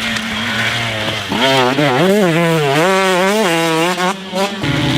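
Dirt bike engine revving hard and loud: it holds a steady high note at first, then the revs swing up and down repeatedly as the throttle is worked, settling to a lower note near the end.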